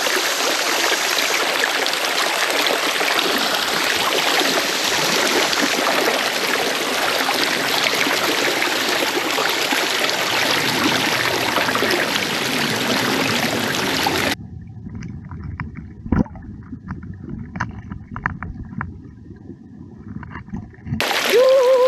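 Mountain stream water rushing and trickling, a steady hiss. About two-thirds of the way in the sound turns abruptly muffled and quieter, with scattered clicks, and it turns loud again near the end.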